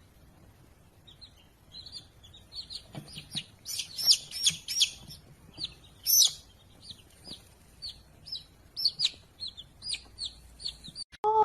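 Bird chirping: a run of short, high chirps, sparse at first and busiest about four to six seconds in.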